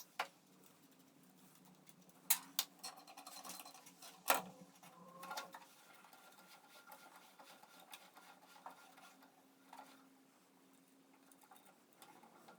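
Wire spool being taken off and a new reel fitted in a MIG welder's wire-feed compartment: a few sharp clicks and knocks, the loudest about four seconds in, with short bursts of scraping and a faint steady hum underneath.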